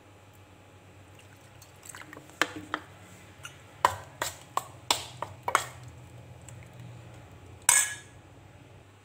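Steel spoon stirring thick pickle masala in a stainless steel bowl, knocking and scraping against the bowl in a run of sharp clinks, then one louder clatter near the end.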